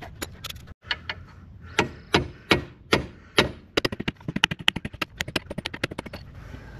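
Sledgehammer blows on a steel pivot pin, metal on metal, driving the pin out of the skid steer's track-frame cradle. First come heavy strikes about every half second, then a faster run of lighter taps about four seconds in.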